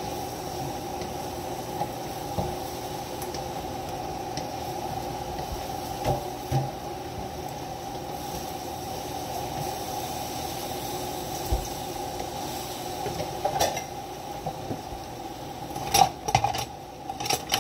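Wooden spatula stirring and tossing sauce-coated fried fish pieces in a nonstick wok, with scattered knocks of the spatula against the pan that come in a quick cluster near the end. A steady hum runs underneath.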